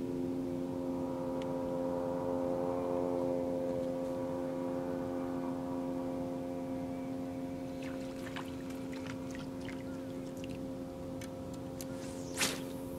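Steady, even-pitched motor hum from the boat, with a few light clicks in the second half and one sharp click near the end, as the spinning reel and rod are worked.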